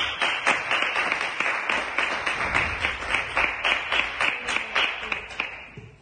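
Audience applauding, a dense patter of many hands clapping that starts suddenly and dies away near the end.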